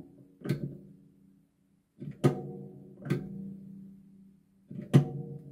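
An ABB contactor clacking four times as its manual-trigger button is pushed in and let go, pulling in and dropping out; each clack is followed by a short ringing tone that fades. The clacks at about two and five seconds in are the loudest.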